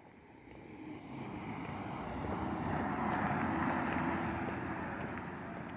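A vehicle driving past on the road, its engine and tyre noise swelling to a peak in the middle and fading away toward the end.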